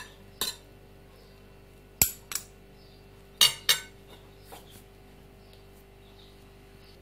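Metal serving spoons clinking against a ceramic plate while a grain salad is tossed: sharp clinks, mostly in quick pairs, through the first four seconds, then a couple of faint ones as the spoons are laid down.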